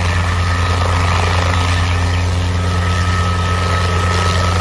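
Light helicopter hovering just above the ground: a steady low rotor and engine hum with a thin, steady high whine above it.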